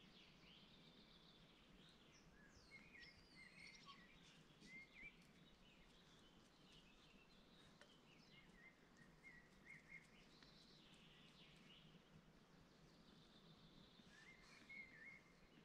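Faint birdsong: several birds singing short chirping and trilling phrases over a quiet, steady outdoor background.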